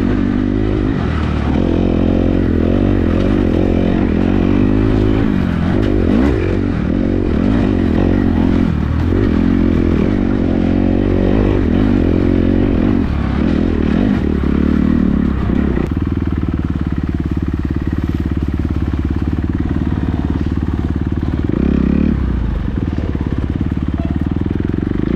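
Dirt bike engine revving up and down as the bike is ridden along a trail, with the throttle opening and closing. For the last several seconds it holds a steadier, even note, with one brief rise.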